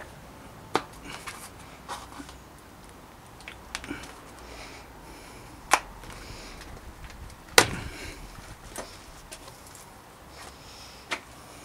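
Panaracer knobbly mountain-bike tyre being worked onto the rim by hand: rubber rubbing against the rim, with a few sharp snaps as the bead is pushed over the rim edge. The loudest snap comes about two-thirds of the way through.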